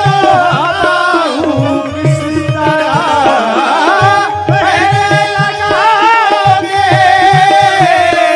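A man singing long, ornamented held notes that slide up and down, with no clear words. Beneath the voice are a steady drum beat and a held accompanying note.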